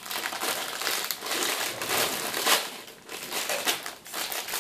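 Clear plastic bags of Lego pieces crinkling in uneven bursts as they are handled and pulled open.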